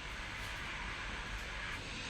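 A sleeping person's soft breathing in the pause between snores, over a steady hiss.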